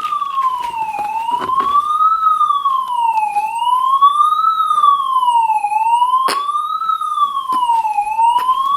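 Recorded emergency-vehicle siren played through a Bluetooth speaker, wailing slowly up and down in pitch, about one rise and fall every two and a half seconds. There is a single sharp knock a little past the middle.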